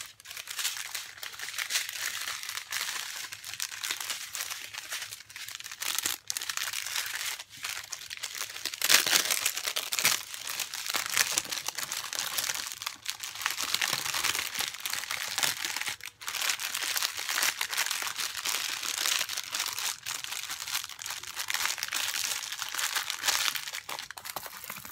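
Plastic packaging crinkling and rustling without a break as hands handle small clear bags of diamond-painting drills, loudest about nine seconds in.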